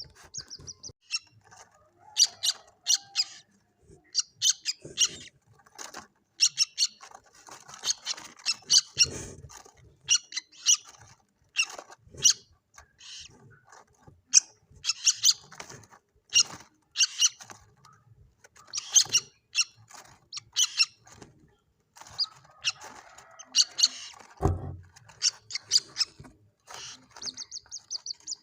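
White-breasted waterhen chicks calling: many short, high, sharp peeps in quick clusters with brief gaps between. A dull low thump comes about three-quarters of the way through.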